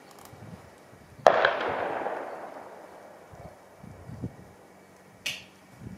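A single shot from an M1A Loaded .308 rifle about a second in, the report echoing and fading away over about two seconds. A lighter, sharp click follows about four seconds later.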